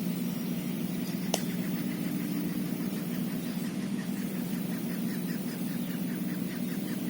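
Steady low mechanical hum, like an engine running, with one sharp click about a second in and faint rapid ticking in the second half.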